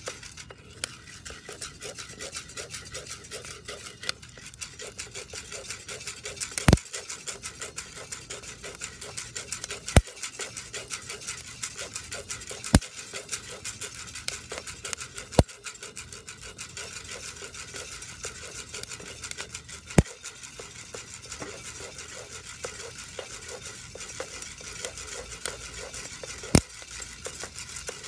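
Coffee beans being stirred with a wooden spatula in a cast iron pot during a home roast, rattling and scraping in a dense run of small clicks. A handful of louder, sharper clicks stand out every few seconds.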